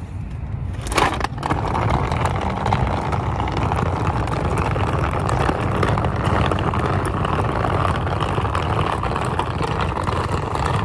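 A single sharp knock about a second in, then the small plastic wheels of a pulled rolling cart rattling steadily over rough, cracked asphalt.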